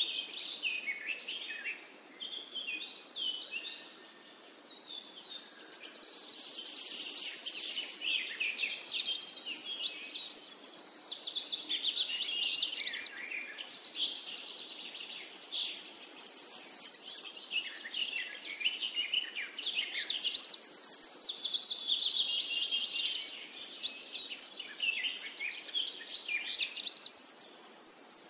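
Songbirds singing, a dense chorus of quick, overlapping chirps and short whistled notes.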